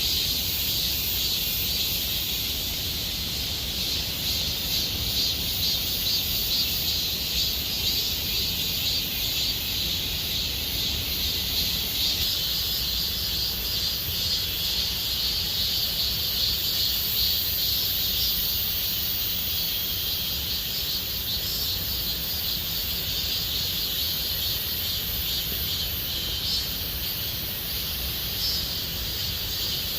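Cicadas singing in chorus: a steady, high, finely pulsing drone that carries on without a break, over a low rumble.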